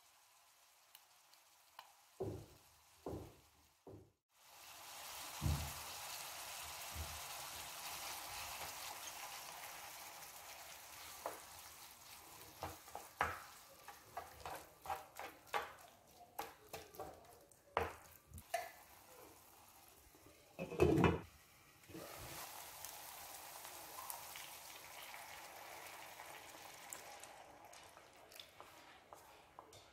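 Onions, tomatoes and ketchup sizzling in a frying pan while a wooden spoon stirs, scraping and knocking against the pan. A few knocks come before the sizzling starts suddenly about four seconds in, and there is a heavier knock about two-thirds of the way through.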